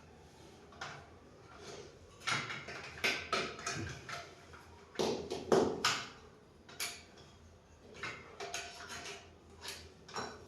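Irregular knocks and clatter of stand parts and tools being handled while a washing machine stand is fitted, the loudest cluster about halfway through.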